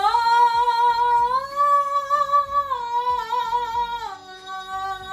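A woman singing one long held vowel in chest voice, reaching up into her high range. The pitch steps up twice and then back down twice near the end, as a vocal exercise.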